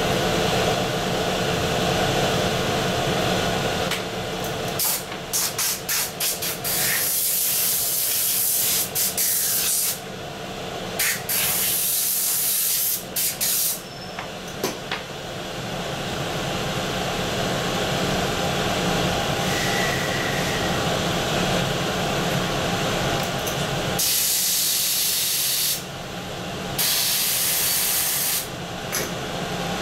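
Repeated bursts of hissing compressed air over a steady machine hum: a run of short bursts in the first half, then two longer hisses near the end.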